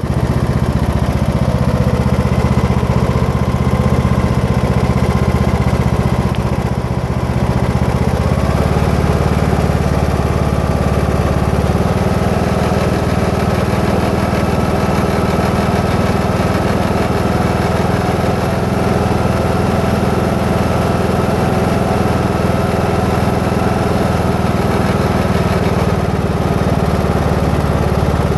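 Husqvarna TS 242 lawn tractor running steadily, with the grinding sound its owner finds wrong in the new machine. Its note shifts about eight seconds in and again about twelve seconds in.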